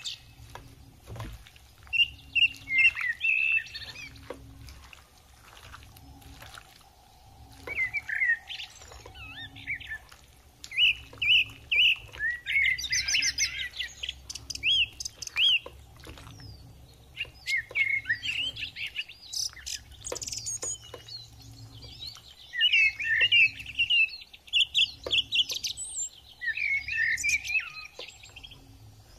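Small birds chirping in repeated bursts of quick, high chirps, every few seconds, over a faint low rumble.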